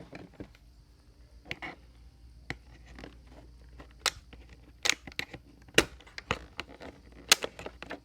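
Irregular sharp plastic clicks and knocks from handling a Keenstone battery charger and fitting 18650 batteries into its bays, the loudest about six and seven seconds in.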